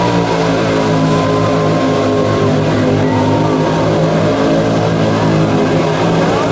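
Four ATV engines running together at high revs under heavy load as the quads push side by side through deep mud, their pitches held steady with slight drifts.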